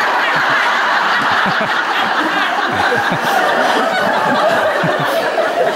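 Large audience laughing steadily together.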